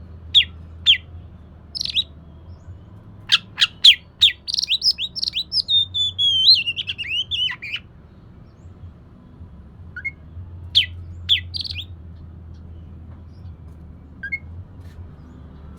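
Oriental magpie-robin singing: a few sharp whistled notes, then a long warbling phrase of about three seconds, then scattered short calls after a pause, over a steady low hum.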